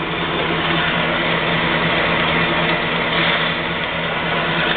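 Jet J-3410 7" x 12" horizontal band saw running steadily just after being switched on: its 3/4 hp, 115 V motor and drive give a steady low tone with a wash of mechanical noise.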